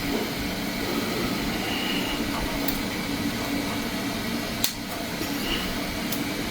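Steady mechanical hum in a small room, with one sharp plastic click about two-thirds of the way through as a filament clip is fitted to the spool.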